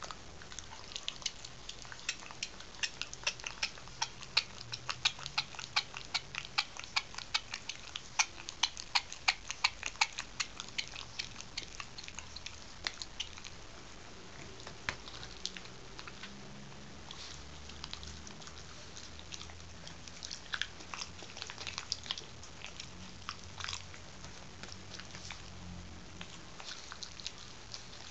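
English Bulldog puppy chewing and gnawing a chew bone: a run of sharp, wet clicks and crunches, two or three a second, thick and loud for the first dozen seconds, then sparser.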